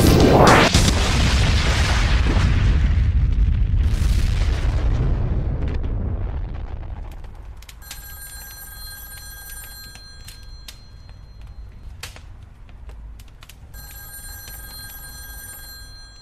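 A huge explosion as crossed proton streams blow up, with a rising whoosh and a long rumble that fades over about six seconds. Then a telephone rings in two long rings, a few seconds apart.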